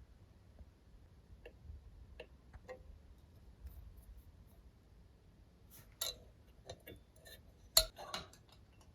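Scattered light clicks and taps of small hard objects being handled, with a few sharper clicks about six seconds in and one loud sharp knock near the end.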